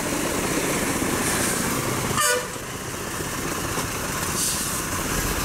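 Steady vehicle engine and road noise with one short horn toot about two seconds in, after which the sound drops a little.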